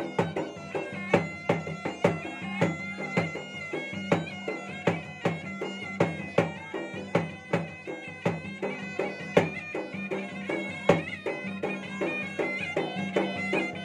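Makassarese gendang ensemble: two double-headed barrel drums beaten with stick and hand in a fast, unbroken rhythm, under a wind instrument playing a sustained melody.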